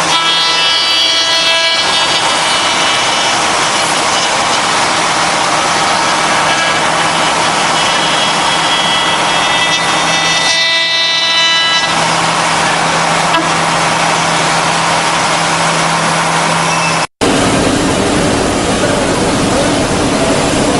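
5-axis CNC router spindle running and cutting wood: a steady high whine over a loud rushing cutting noise. The sound drops out for an instant about seventeen seconds in and comes back rougher, with a lower hum.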